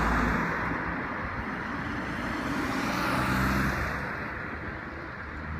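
A motor vehicle passing on the road, tyre and engine noise swelling to a peak about three seconds in, then easing off.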